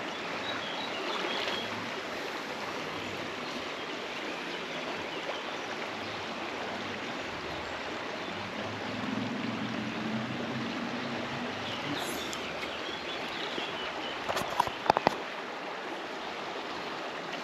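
A small river flowing over stones: a steady rush of running water. A few short clicks near the end.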